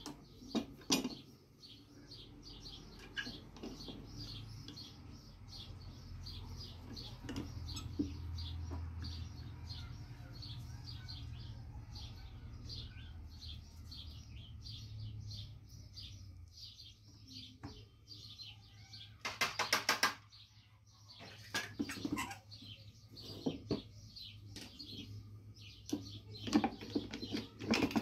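A steel sinker mould and metal tools clinking and rattling together as they are handled: a burst of rapid rattling about two-thirds of the way through, then several sharp clinks near the end. Under it runs a quick, even high ticking and a low hum.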